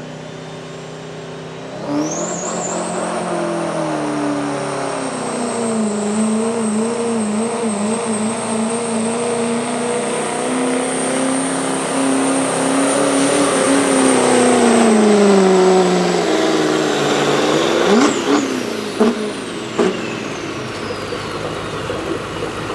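Chevrolet work-stock diesel pickup making a full-throttle pull down the track: the engine and a high turbocharger whistle come up sharply about two seconds in and hold for some fourteen seconds, the engine pitch sagging and recovering under load. Near the end the engine winds down as the turbo whistle falls away, with a few sharp cracks.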